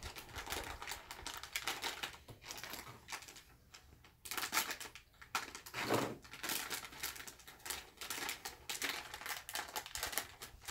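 Small plastic snack packet crinkling and crackling in the hands as it is pulled and torn at to get it open, with a dense, irregular run of crackles.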